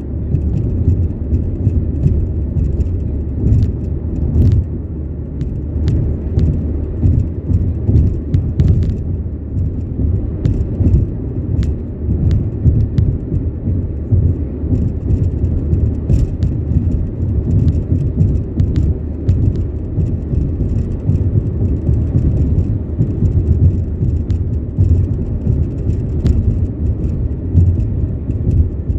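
Car driving on a rural road, heard from inside the cabin: a steady low rumble of engine and tyres on the pavement, with scattered small clicks through it.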